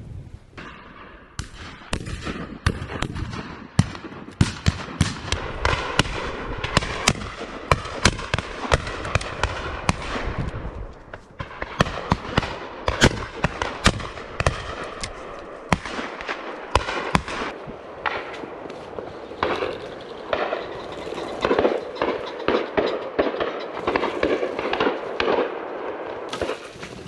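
Rapid, irregular shotgun fire from a line of guns shooting driven partridge and pheasant: dozens of shots, some close and loud, others distant and overlapping into a crackle, over a steady wind haze.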